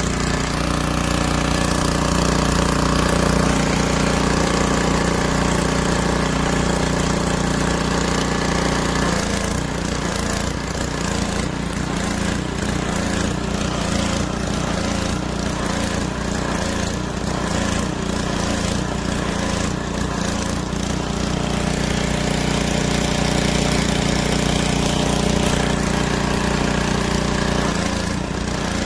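Small gas engine of a pressure washer running steadily, its note shifting about nine seconds in.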